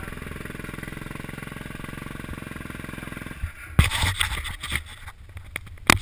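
Dirt bike engine idling steadily, then about three and a half seconds in it gives way to loud, irregular wind buffeting on the helmet camera and several sharp knocks as the bike moves off along the trail.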